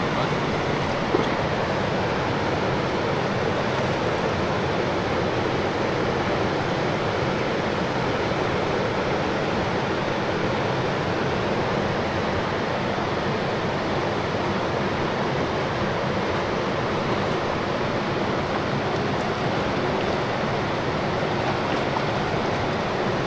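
A backcountry river rushing over its stony bed, a steady, even water noise, with one brief click about a second in.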